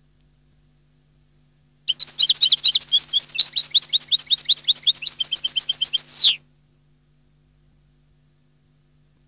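European goldfinch singing one fast twittering phrase of rapid high notes for about four and a half seconds, starting about two seconds in and ending in a falling whistle.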